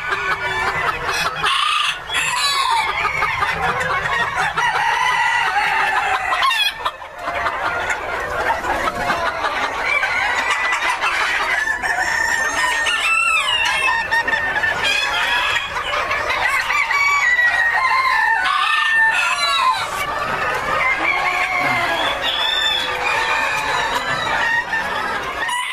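A flock of Crele Old English Game Bantam chickens clucking and calling over one another without a break, with bantam roosters crowing a few times over the flock.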